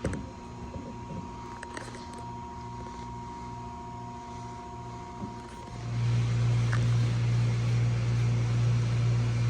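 A low buzzing hum that pulses a few times a second, with a steady high tone above it. About six seconds in, the tone stops and the hum swells into a much louder steady drone.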